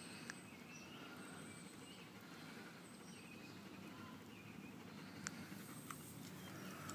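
German shepherd panting softly, faint against outdoor quiet, with a few small sharp clicks.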